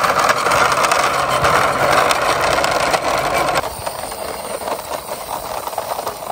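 Plastic wheels of toy cars rolling over rough concrete as they are pushed by hand, a steady grinding noise. About three and a half seconds in it drops to a quieter rolling with light clicks as a toy quad bike is pushed.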